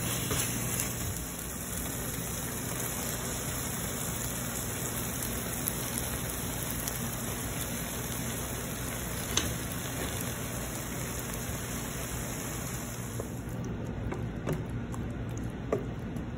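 Chicken hearts in tomato sauce sizzling and simmering in a metal pot, a steady hiss. A few light knocks come from a wooden spoon stirring the pot.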